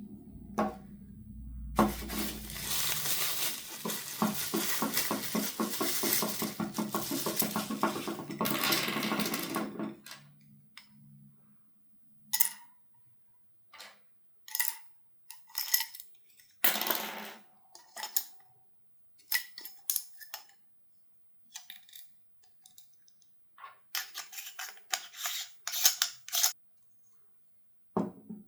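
Metal parts of an airsoft silencer being handled, clinking and rattling: a dense run of rapid clicks for about eight seconds, then a series of separate clinks and taps.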